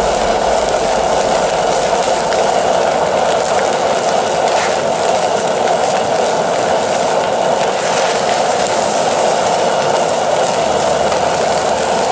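Roaring Dragon gas wok burner running at full flame under a cast-iron plancha: a steady, even rush of burning gas that holds unchanged throughout, with the ribeye searing on the hot plate.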